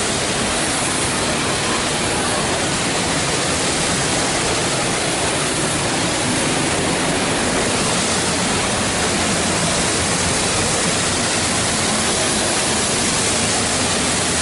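Waterfall close by: a loud, steady rush of falling water that fills every pitch evenly and does not change.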